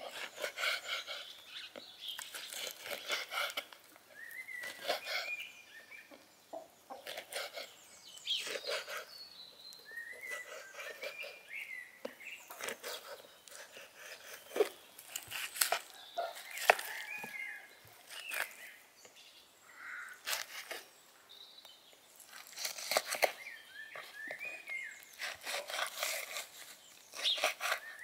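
A knife cutting through raw lamb lung onto a wooden cutting board, each stroke a sharp knock at an irregular pace. Birds call in the background throughout.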